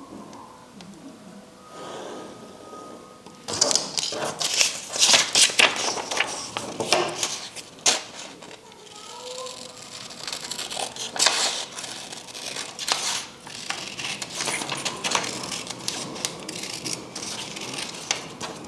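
Sheets of craft paper being handled, rustling and crinkling in irregular bursts that start about three and a half seconds in.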